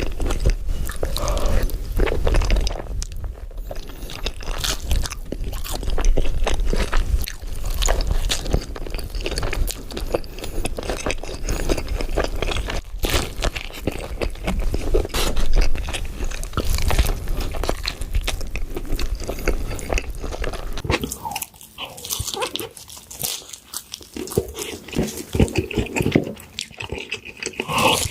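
Close-miked eating sounds: crunchy bites and wet chewing of fast food such as burgers. The sound gets quieter and thinner about 21 seconds in.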